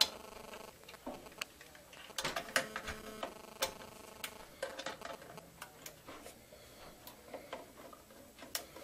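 Irregular small clicks and taps as wire push-on connectors are handled and pressed onto the spade terminals of a furnace control board, with a sharper click at the very start and a cluster about two seconds in.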